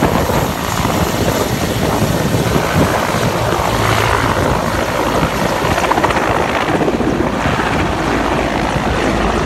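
Mil Mi-17-family helicopter taking off: loud, steady rotor and turbine noise as it lifts off and climbs away, stirring up heavy dust.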